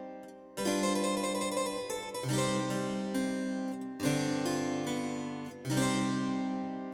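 Background music: harpsichord-like keyboard chords, a new chord struck about every second and a half and left to ring and fade.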